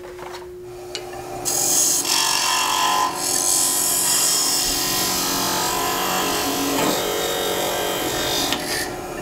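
Thin parting tool cutting into a spinning wooden spindle on a wood lathe: a steady, loud rasping scrape that starts about a second and a half in and stops near the end, over the lathe's steady hum.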